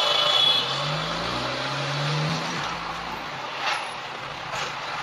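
Car and road noise from traffic. A high, steady tone cuts off about half a second in, then an engine note rises in pitch about one to two seconds in, and there are two short clicks near the end.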